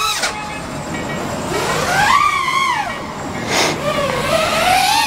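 A five-inch freestyle FPV quadcopter's brushless motors and propellers whining in flight, the pitch rising and falling with the throttle. There are two brief rushes of noise, one near the start and one past the middle.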